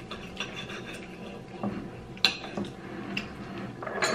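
Knives and forks scraping and clinking on dinner plates as steak is cut, with a few sharp clinks scattered through, the clearest about two seconds in.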